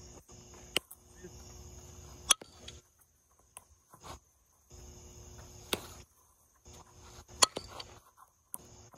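Four sharp cracks of a softball being hit and caught in fielding practice, the second and fourth loudest, over a steady high chirring of crickets. The background cuts out abruptly several times.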